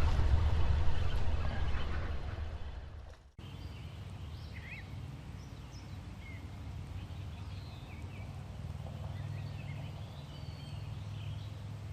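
A loud rushing noise with a heavy low rumble fades out over the first three seconds and then cuts off. After that, small birds chirp and whistle in short scattered calls over a steady low hum.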